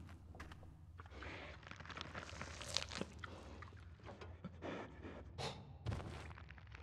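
Quiet footsteps with crunching scuffs and small knocks, irregular rather than an even stride, over a steady low rumble.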